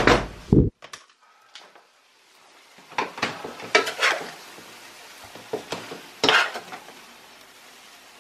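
Kitchen clatter of a utensil knocking and scraping against a wok and dishes as stir fry is served. A loud burst of knocks comes at the start, then after a short lull a few more scattered clinks and scrapes.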